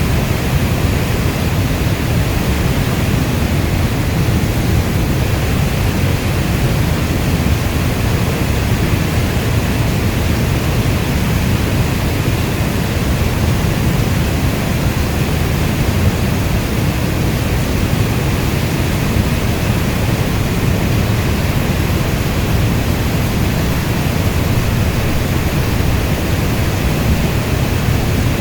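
Steady heavy rainfall heard as one dense, even hiss that is deepest at the low end, with no single drops, thunder or breaks standing out.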